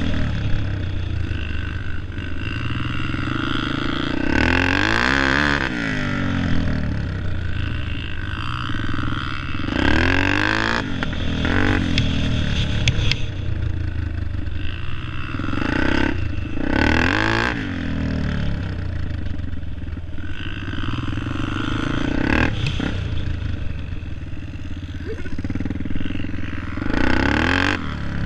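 Dirt bike engine heard close up from the bike itself, revving up and easing off again and again, its pitch rising and falling about five times as it rides.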